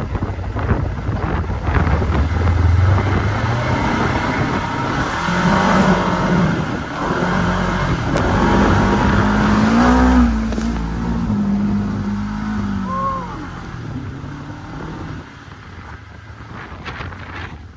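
Segway 1000 UTV engine revving and pulling under load, its pitch climbing and dropping as the throttle changes, with a noisy rush over it; it eases off and gets quieter near the end.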